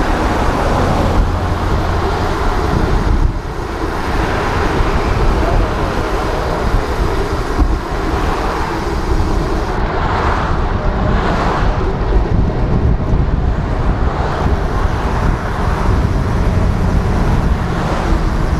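Wind buffeting the microphone of a handlebar-mounted camera on a moving bicycle, a steady heavy rumble, mixed with road noise from car traffic going by.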